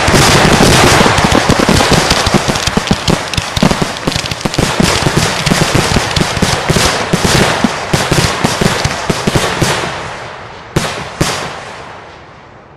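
Fireworks fired from ground mortar racks: a dense, rapid barrage of shell launches and bursts that thins out and fades about ten seconds in. Then two last sharp bangs, about half a second apart.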